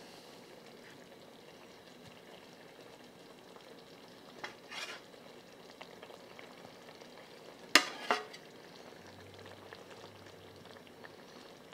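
Creamy sauce simmering faintly in a skillet while seared chicken breasts are laid back into it with metal tongs. There are two brief clacks, about four and a half seconds in and a stronger one near eight seconds.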